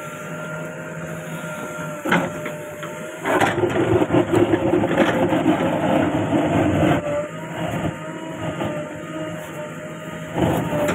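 Diesel engine of a JCB 3DX backhoe loader running while it digs, growing louder for about four seconds starting around three seconds in, with a few sharp clunks from the digging and loading.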